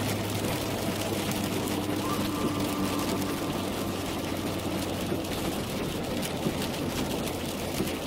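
Car driving on a wet road in rain: a steady engine hum under an even wash of road and rain noise, with fine scattered ticks of spatter.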